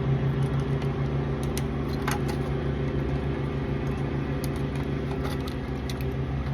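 A steady mechanical hum from a running motor or engine, with scattered light metallic clicks and taps from hand tools working on metal.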